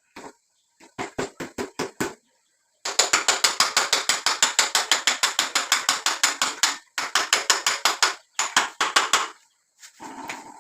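Engine-driven paving-block stamper machine running in stop-start runs of rapid mechanical knocking, about nine knocks a second. The longest run lasts about four seconds.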